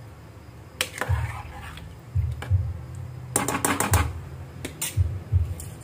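A slotted metal spoon stirring thick pav bhaji in an aluminium pot, clinking against the pot in a few sharp knocks, with a quick run of clinks about three and a half seconds in.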